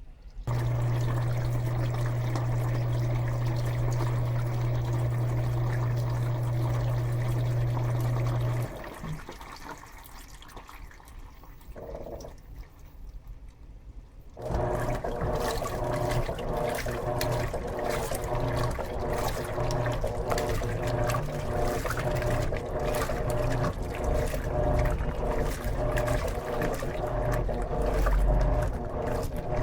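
Electrolux LM13Q top-load washing machine filling, water pouring into the tub over a steady low hum that stops about eight seconds in. After a few quieter seconds, a busier churning sound of water being moved around the tub starts about halfway through, as the wash cycle begins.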